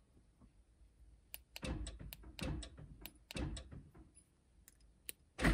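Faint clicks and soft thunks as the key is pulled and the key fob's lock and unlock buttons are pressed, the van's power door locks actuating, with a louder thunk near the end. This is the lock/unlock step of programming a Flashlogic remote start module.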